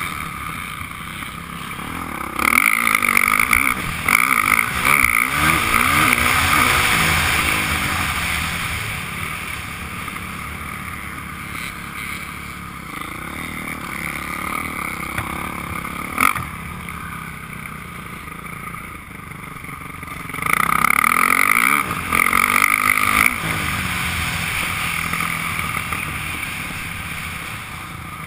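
Motocross dirt bike engine heard from the rider's helmet camera, revving hard under throttle in two stretches, a couple of seconds in and again about twenty seconds in, and running quieter off the throttle in between. A single sharp knock comes about halfway through.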